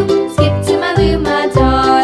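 Cheerful background music for children: an upbeat instrumental with a bouncy bass beat and bright melody notes.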